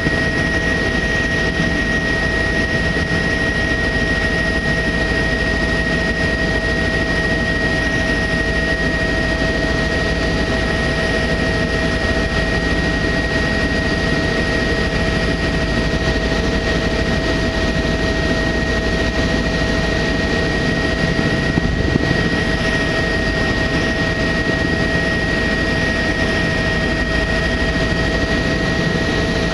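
Helicopter in steady cruise flight: an even, unchanging rotor and turbine drone, heard from on board, with two steady whining tones over the noise.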